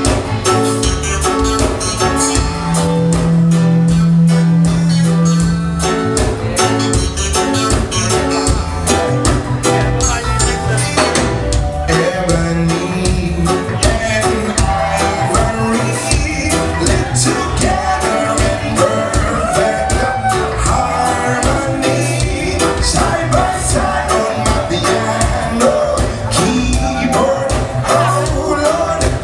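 A band playing a song with drums, bass and guitar, and a voice singing from about eleven seconds in.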